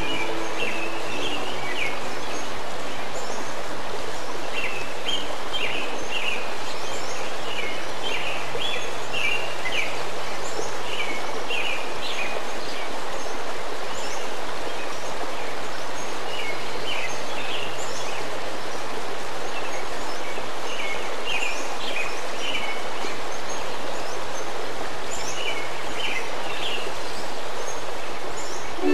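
A nature soundscape: small birds chirping in scattered bursts over a steady rushing sound of running water.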